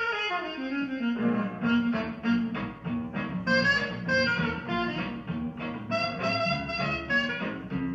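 Up-tempo swing jazz with saxophones, brass and a walking bass: a falling slide in the first second, then short, punchy horn notes over a steady beat.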